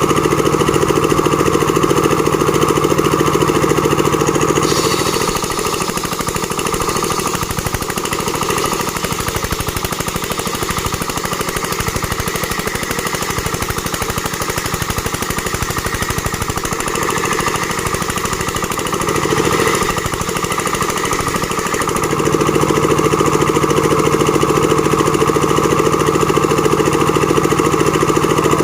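Engine-driven board-making (plank-sawing) machine running steadily. About five seconds in its note goes rougher and a little quieter for some seventeen seconds, then returns to the steady run.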